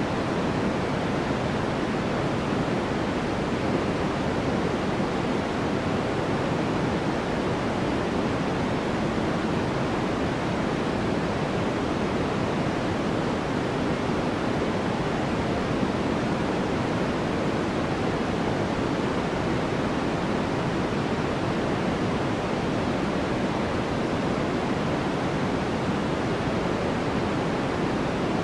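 Steady white-noise sleep track: an even, unchanging hiss, fuller in the low-middle range than in the treble.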